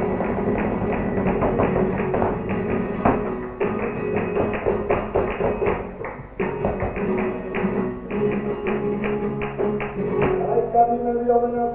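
Live flamenco music with fast, rhythmic percussive taps over sustained tones. A singing voice comes in near the end.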